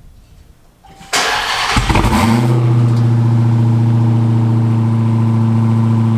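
Supercharged 6.2-litre Hemi V8 of a Dodge Hellcat being started: a loud burst of cranking about a second in, then it catches with a short rise in pitch and settles into a steady high idle.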